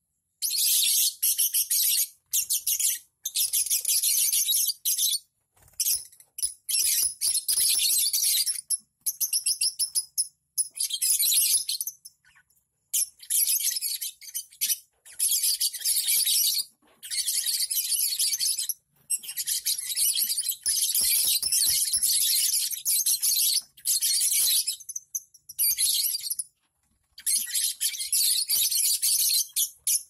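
A flock of lovebirds, Fischer's and masked lovebirds, chattering: shrill, high-pitched chirping in dense bursts of one to three seconds, broken by brief pauses.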